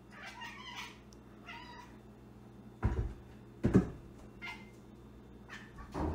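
Domestic cat meowing twice briefly, then two heavy thumps about three seconds in as the cat jumps down from the top of a refrigerator to the floor.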